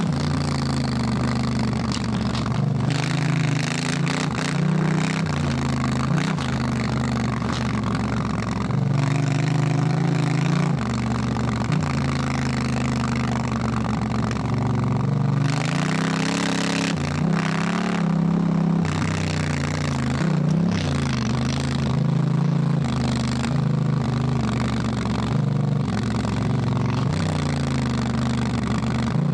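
Honda Africa Twin's parallel-twin engine under hard riding, the revs climbing and dropping back again and again as it is shifted through the gears, over a steady rush of wind and road noise.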